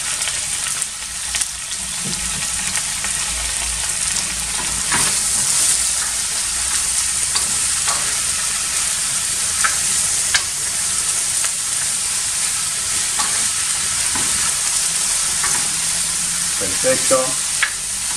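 Shredded chicken and vegetables sizzling steadily in oil in a wide frying pan, stirred with a wooden spoon that scrapes and knocks against the pan now and then.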